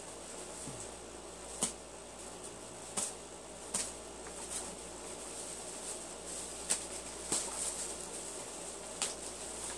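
Packaging being handled during unboxing: scattered crinkles, rustles and sharp clicks of a box and plastic wrapping being moved, several a few seconds apart with a busier patch near the end, over a faint steady hiss.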